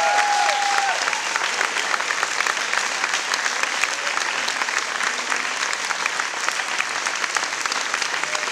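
Audience applauding: steady, dense clapping, with a few cheers in the first second.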